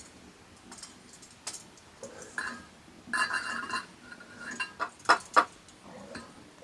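A series of light clinks and knocks from objects being handled, some with a short ringing tone, and two sharp clicks about five seconds in.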